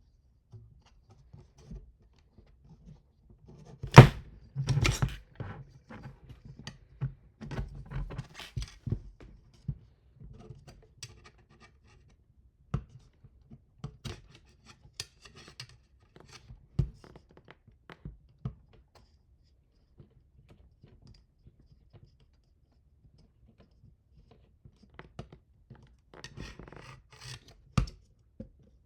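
Hand assembly of 3D printer frame parts: scattered clicks, scrapes and small knocks as parts and tools are handled, with one sharp knock about four seconds in and a busy stretch of clatter just after it.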